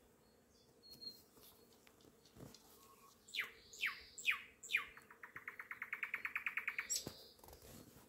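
Nightingale singing: after a few quiet seconds, four loud whistles that each slide downward, then a fast rattling trill of about ten repeated notes a second that grows louder for about two seconds. A sharp click and a short high note end the phrase.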